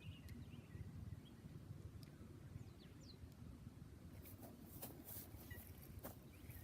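Near-quiet outdoor ambience: a low steady rumble with a few faint, short bird chirps and some faint ticks.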